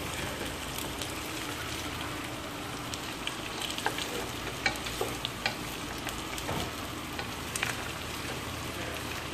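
Chicken, carrots, onion and garlic sizzling as they sauté in a non-stick frying pan, stirred with a wooden spatula that scrapes and lightly taps the pan now and then.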